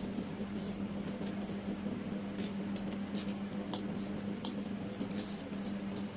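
Eating sounds: soft squishes and small scattered clicks from fingers mixing rice and curry on steel plates, and from chewing, over a steady low hum.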